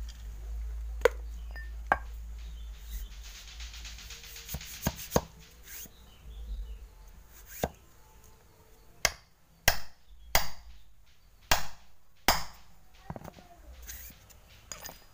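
A steel rammer struck from above, tamping earth into a paper sreng dor rocket tube set in a stone slab: about a dozen sharp knocks at uneven intervals, coming closer together, about one a second or faster, in the second half.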